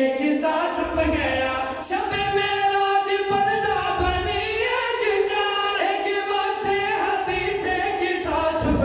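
A group of men singing a devotional song together without instruments. A lead voice into a microphone carries long held notes with slow melodic turns.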